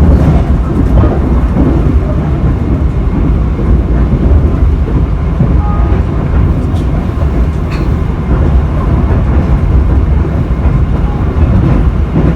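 Passenger train running on rails: a loud, steady low rumble with a few faint clicks of the wheels on the track.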